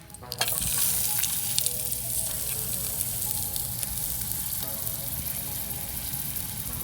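Chopped onion, peppers, garlic and tomato dropped into hot oil in a pan, sizzling loudly. The sizzle starts suddenly just after the start and then holds steady.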